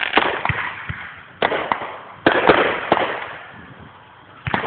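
Aerial firework shells bursting: a series of sharp bangs, the loudest about one and a half and two and a quarter seconds in and another near the end, each trailing off in a fading rumble of echo.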